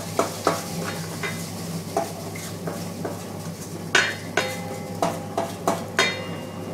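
Small detergent-powder mixing machine running with a steady low hum while powder pours out of its stainless-steel discharge chute into a plastic bucket. Through it come sharp metallic clanks with a brief ring, several in quick succession, loudest about four and six seconds in.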